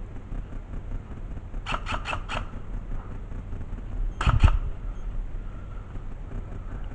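Airsoft gun firing: a quick string of four shots, then two more about two seconds later, the second pair with a heavier thump, over a steady low rumble.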